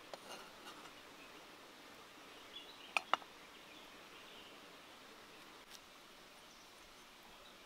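Faint outdoor background with light chirping. About three seconds in come two sharp knocks in quick succession from a kitchen knife striking a wooden chopping block, after a few light taps of the blade near the start.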